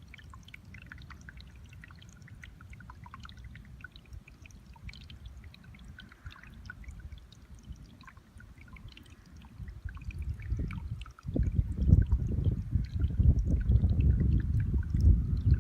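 Water trickling faintly out of a flooded rice paddy, with many small scattered drips and splashes. About eleven seconds in, a much louder low rumble sets in and lasts to the end.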